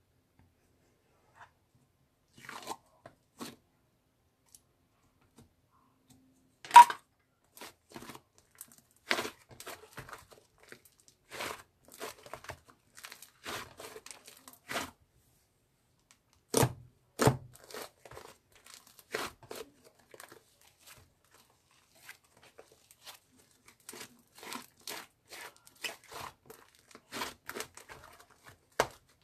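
Irregular crunching and tearing: dozens of short, sharp crackles with quiet gaps between them. The loudest is a single crack about seven seconds in.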